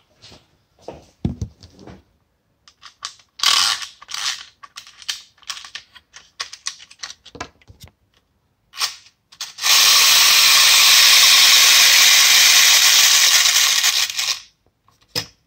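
Clockwork spring motor of an Arnold A560 tin toy motorcycle: scattered clicks and rattles of the toy being handled, then about ten seconds in the motor runs with a loud, steady whirr for about five seconds, its wheels spinning free in the air, and then stops.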